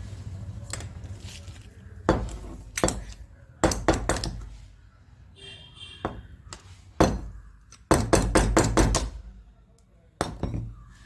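Irregular knocks and metallic clinks from hands-on work with a rotary hammer drill and its bit, with a quick run of about five or six strikes near the end.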